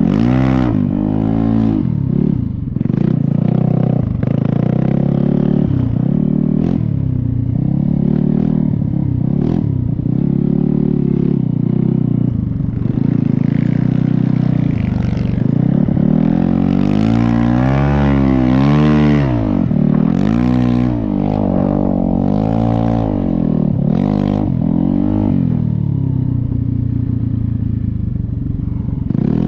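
Snow bike's motorcycle engine revving up and down over and over while riding through deep snow, its pitch rising and falling every second or two, with a longer, higher rev a little past halfway.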